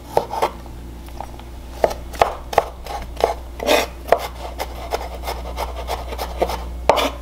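Chef's knife mincing garlic on a wooden cutting board: irregular knocks of the blade striking the board, a few a second, with the blade scraping across the wood between strokes.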